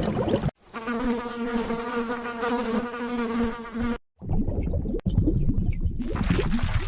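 A flying insect buzzing steadily for about three seconds, starting and stopping abruptly at cuts; after it, a low rumbling noise.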